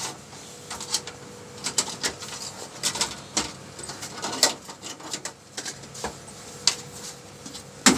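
Scattered light clicks and taps, like handling noise against a plastic TV back cover, over a faint steady hum.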